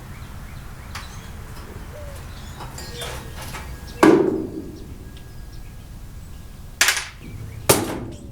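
Knocks and clunks from hands and tools working on the van's front end: a few faint ticks, one loud clunk about four seconds in, then two sharp knocks near the end.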